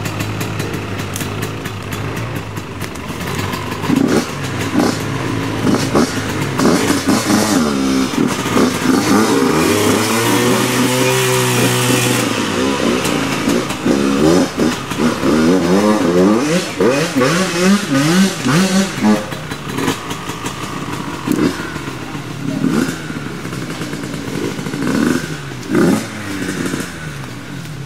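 Dirt bike engine revving up and down over and over, loudest through the middle stretch, as the bike is worked up a steep, slippery mud rut. Scattered knocks and clatter are heard near the end.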